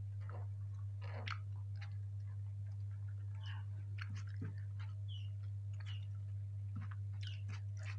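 Close-miked chewing of a mouthful of fried rice (nasi goreng), small mouth clicks at irregular intervals, over a steady low hum.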